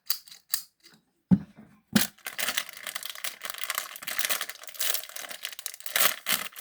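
A few light clicks and a thump, then from about two seconds in continuous crinkling and rustling of plastic packaging as an item is unwrapped.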